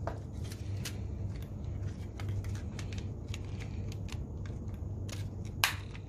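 Scattered small clicks and taps of hand tools and the plastic shell of a DJI Spark remote controller being handled and prised apart, with one sharper click about five and a half seconds in. A steady low hum runs underneath.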